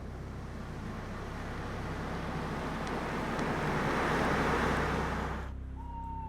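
Added sound effects: a rushing noise, like traffic, swells over a few seconds and cuts off abruptly about five and a half seconds in, over a steady low hum. A short, slightly falling whistle-like tone follows near the end.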